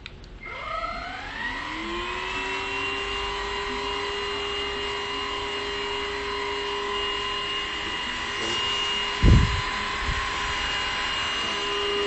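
DIBEA D18 cordless stick vacuum cleaner switching on, its motor spinning up with a rising whine that settles within about a second and a half, then running steadily with a high whine. A single loud thump about nine seconds in.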